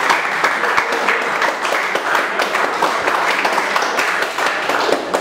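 Audience applauding, many hands clapping at once at an even level.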